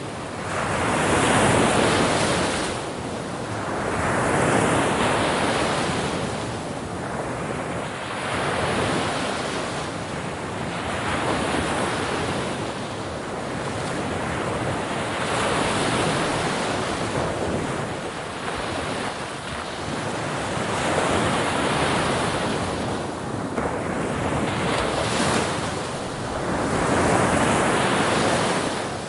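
Sea waves breaking on a shore, a continuous rushing wash of surf that swells and falls away every few seconds.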